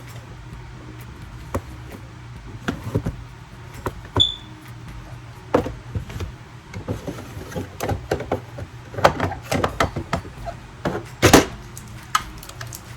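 Irregular clicks, clacks and knocks of small supplies and containers being handled and moved while sorting, busier in the second half, with the loudest knock about eleven seconds in and a brief squeak near four seconds. A steady low hum runs underneath.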